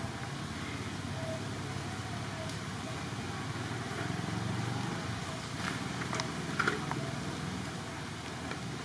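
A steady low rumble of background noise, like distant motor traffic, with a few short faint clicks a little past the middle.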